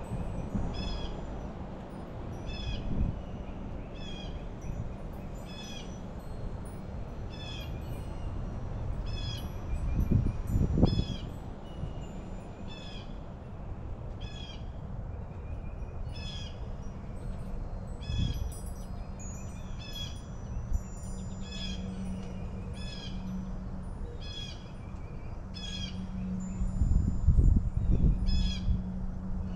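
Small songbirds chirping over and over in short, high notes, every half second to a second. A low steady hum comes in during the second half, and there are low rumbles about ten seconds in and near the end.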